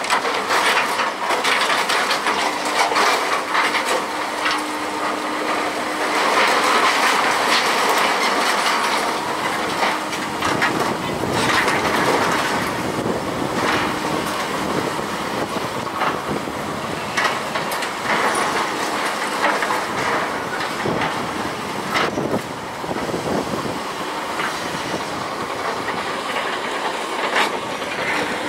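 A Volvo excavator's grapple tearing down steel roof framing and sheet metal: metal scraping and clattering with many knocks and crashes of falling steel. A steady hum, from the excavator, runs under it through the first half.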